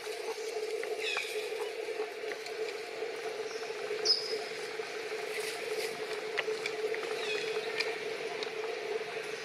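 Forest ambience: a steady low hum with scattered short, high animal squeaks and chirps, one sharper whistle-like note about four seconds in.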